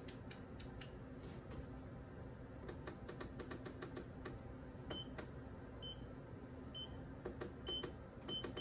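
Walking pad treadmill console beeping at each button press: five short high beeps about a second apart in the second half, with light clicks over a low steady hum.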